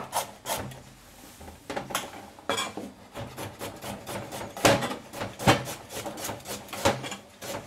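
Chef's knife slicing carrots into thin rounds on a plastic cutting board, each cut ending in a knock on the board, about three a second, with a short pause about a second in.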